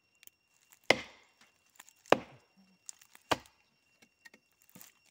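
Three chopping blows of a hand tool into a standing tree trunk, a little over a second apart, each a sharp knock into the wood.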